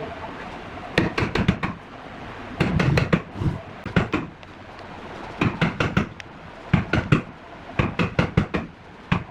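Knocks on wood in short clusters of several quick strikes, with pauses of about a second between the clusters.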